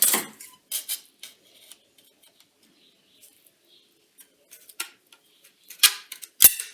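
Scattered light metallic clicks and clinks of small metal pieces and tools being handled and set down, with a few louder knocks near the end.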